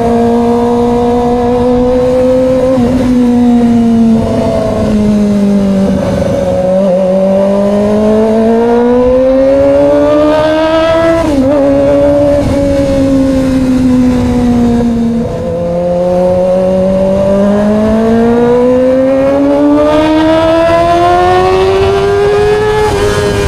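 Kawasaki ZX-25R's four-cylinder 250cc engine, very loud through an Austin slip-on exhaust, ridden on the road: the engine note falls and climbs with the throttle, drops suddenly about two-thirds through, then rises steadily toward the end.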